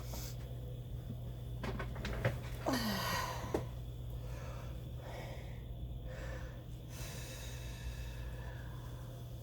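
A person's breath catching in a short, breathy gasp with the voice falling in pitch, about three seconds in, with a few small clicks just before it and faint breathing after. It is the build-up of a sneeze from a tickling nose that does not come out.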